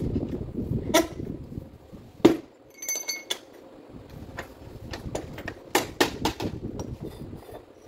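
Steel tools and parts being handled on a metal workbench: low handling noise at first, then a sharp metal knock about two seconds in, a brief ringing clink a moment later, and several lighter metallic clicks and clinks near the end.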